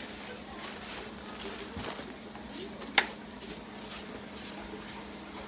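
Quiet kitchen background with a steady low hum, broken about three seconds in by a single sharp click or tap.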